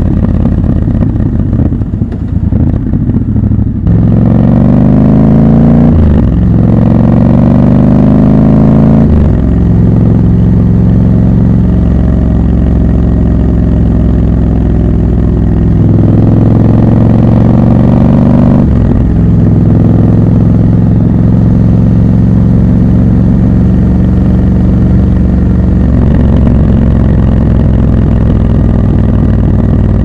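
Triumph Scrambler 1200 XC's 1200 cc parallel-twin engine, heard from the rider's seat. It runs at low revs at first, then pulls hard from about four seconds in, rising in pitch and dropping at upshifts near six and nine seconds. It then cruises at steady revs, with one more pull and upshift a little before twenty seconds.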